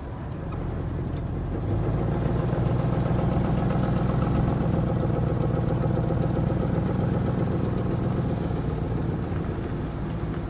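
Steady engine hum heard from inside a slowly moving car. It grows louder about two seconds in and eases a little near the end.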